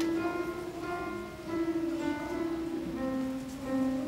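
Upright piano played by a young child: a simple, slow melody of single notes, each held and ringing, with a new note about every half second.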